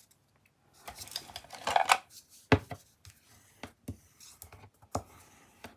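Cardstock being folded and creased along a score line: scratchy rubbing strokes on the paper, with a few sharp knocks on the work table.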